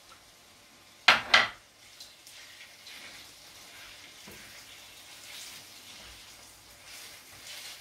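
Two sharp knocks about a quarter second apart, about a second in, then chopped vegetables and tomato sizzling steadily in a frying pan as they are stirred with a wooden spoon, with a few faint scrapes.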